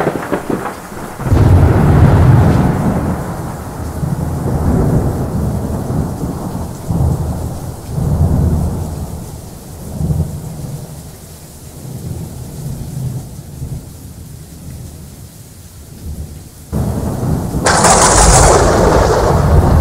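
Thunderstorm: rolling peals of thunder rumbling and fading in waves over steady rain, opening with a crack and ending with a sudden, much louder clap about seventeen seconds in.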